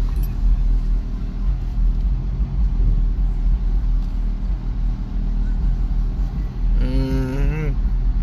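Steady low rumble of an idling car engine. Near the end, a short wavering voice-like sound rises and falls briefly over it.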